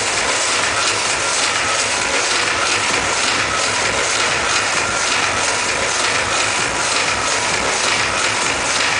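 Loud dance music from a club sound system, recorded by a phone so close to the speakers that it is distorted into a dense, steady wash of noise.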